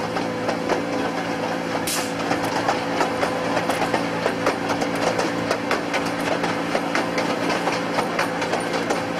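Miniature railway train running steadily, its locomotive's engine humming under a stream of irregular clicks and rattles from the coaches and wheels on the track, with a short hiss about two seconds in.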